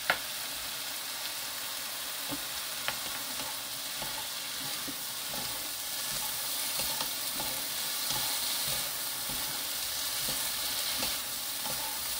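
Julienned squash sizzling steadily in oil in a nonstick wok while being tossed with two wooden spatulas, with a few light clicks of wood against the pan.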